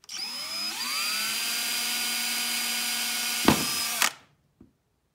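Cordless drill with a small bit boring through a plastic bottle cap. The motor whine climbs in pitch as it spins up, runs steady for about three seconds, then a sharp knock and it stops about four seconds in.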